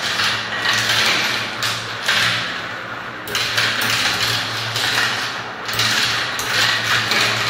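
Marbles and small balls rolling and swirling around the plastic funnel bowls of a toy marble run: a continuous whirring rumble that swells and fades every second or two as balls circle and drop through the holes.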